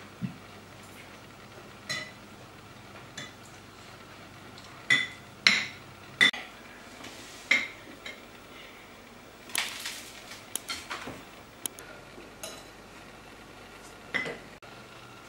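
Metal cutlery clinking and scraping against ceramic plates and bowls as people eat soup. The clinks come one at a time at irregular intervals, the loudest about five seconds in, and some ring briefly.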